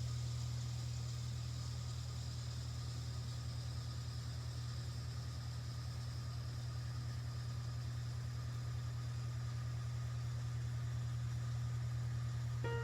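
Steady low mechanical hum with a slight fast pulsing, unchanged throughout.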